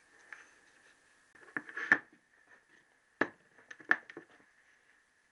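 Short sharp knocks and clunks of a connecting rod and tools being handled on a wooden workbench: a small cluster with the loudest about two seconds in, then two more knocks over the next two seconds.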